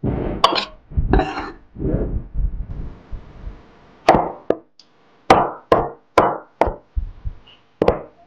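At first a knife blade scraping shredded pork off into a plate. Then, from about four seconds in, a kitchen knife cuts peeled tomatoes on a wooden cutting board: about a dozen sharp chops of the blade against the board, several a second.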